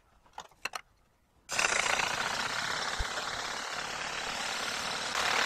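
Aerosol spray paint can spraying: a steady hiss, after a few light clicks, that grows a little louder near the end.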